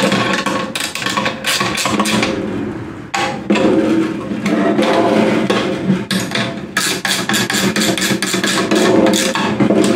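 Ratchet wrench clicking in quick runs as nuts on threaded steel rods are tightened down, with metal tools knocking against the frame.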